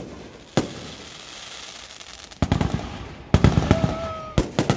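Firecrackers going off: a single sharp bang early, a quick crackling string of pops about halfway through, then more scattered bangs near the end.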